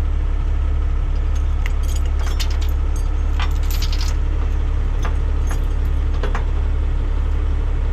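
Steel recovery chains clinking and rattling in short, scattered jingles as they are handled around a semi tractor's frame, over the steady low hum of a heavy truck engine running.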